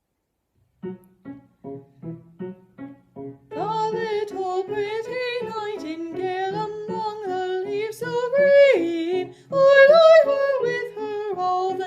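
An art song for voice and piano: a short piano introduction of about seven detached, evenly spaced notes, then from about three and a half seconds in a woman's trained classical voice sings a sustained, legato line with vibrato over the piano accompaniment.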